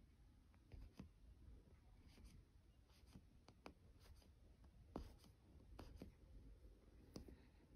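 Faint hand-stitching sounds: embroidery floss drawn through even-weave cross-stitch fabric with a light scratchy rub, and soft ticks now and then at irregular intervals.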